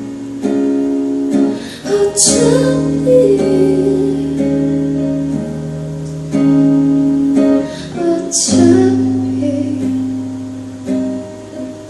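Live acoustic guitar strumming sustained chords in a wordless instrumental passage of a song, with two sharper accented strokes about two and eight seconds in.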